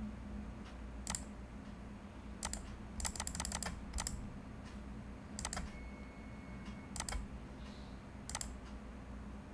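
Computer keyboard and mouse clicking in scattered single clicks, with a quick run of about eight keystrokes about three seconds in, over a low steady hum.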